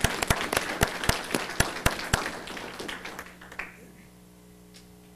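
Audience applause with several sharp, close hand claps standing out, dying away about three and a half seconds in. A low steady mains hum remains underneath.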